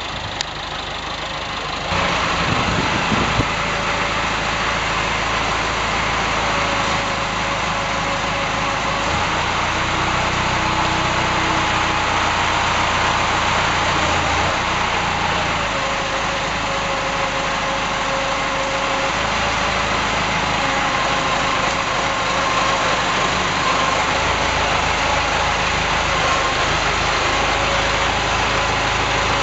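Farm tractor engine running steadily while it works a front-loader silage shear, with the note turning deeper and heavier for several seconds in the middle.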